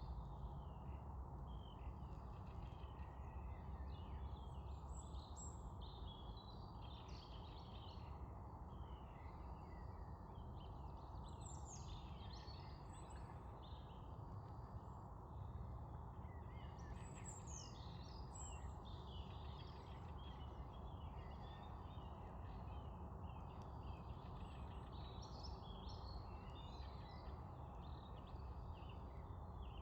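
A chorus of small songbirds chirping and trilling continuously, with many overlapping short calls, over a steady low rumble of background noise.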